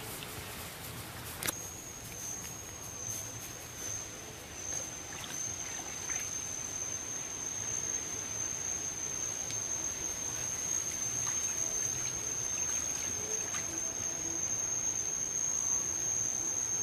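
Outdoor ambience: faint steady hiss with scattered light clicks and rustles, and a steady high-pitched whine that sets in with a click about a second and a half in and holds.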